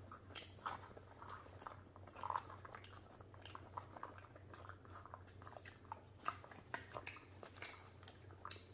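Close-miked eating: people chewing and crunching spiced soaked chickpeas, with scattered short crunches and clicks of plastic spoons in plastic bowls, faint and irregular.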